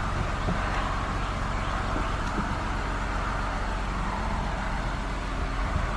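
2012 Honda Ridgeline's 3.5-litre V6 running steadily, heard from inside the cab, as the truck is put in reverse and backed up slowly.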